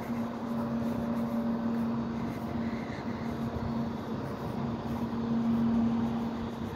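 Steady engine hum of a Freightliner McNeilus recycling truck running down the street. It is one held tone over a haze of outdoor street noise, a little louder about five seconds in.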